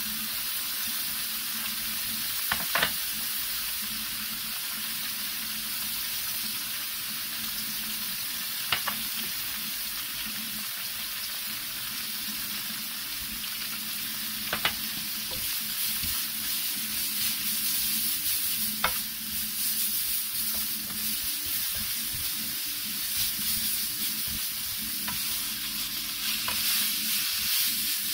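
Spiralized carrot noodles sizzling in a frying pan while being stirred with a wooden spatula, the sizzle fuller in the second half. Four sharp clicks, a few seconds apart, stand out above a steady low hum.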